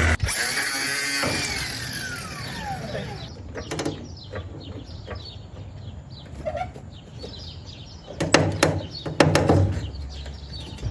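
A machine's steady hum cuts off, and its whine winds down over about three seconds. Then come scattered metallic clanks and knocks from handling car parts, jacks and a hoist, loudest in a cluster about eight to nine and a half seconds in.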